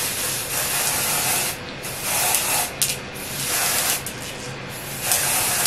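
Aerosol can of tinted lace spray hissing in several bursts of about a second each, short gaps between them, sprayed onto the inside of a wig's lace to tint it brown.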